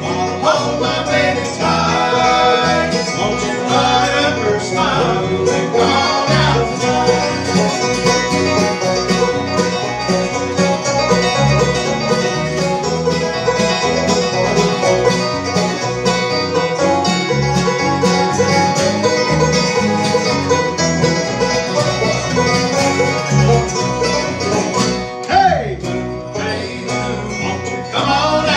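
Bluegrass band playing, with banjo and guitar picking over a steady beat.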